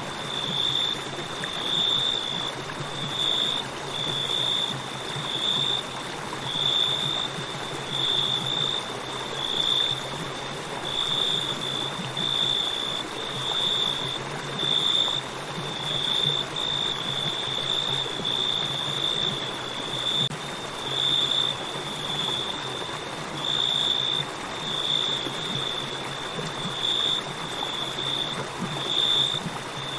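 River water flowing and rushing steadily, with crickets chirping in a continuous high-pitched pulsing trill over it.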